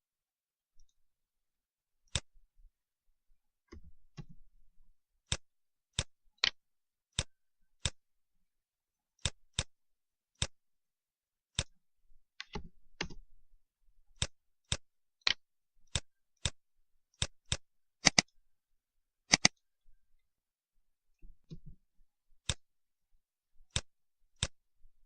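Computer mouse buttons clicking, single sharp clicks at uneven intervals of roughly one a second, with a few faint rustles between them.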